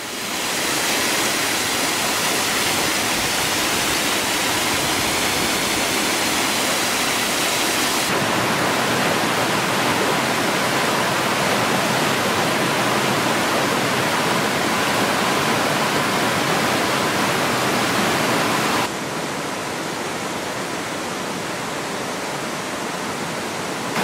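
Waterfalls and cascading stream water rushing steadily. The sound changes abruptly at cuts between falls about eight seconds in and again about two-thirds of the way through, and is a little quieter after the second change.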